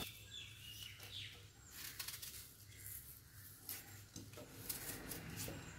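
Faint knife cuts through a green apple, with a few light clicks as pieces drop into a plastic blender jar. Faint bird chirps sound in the background.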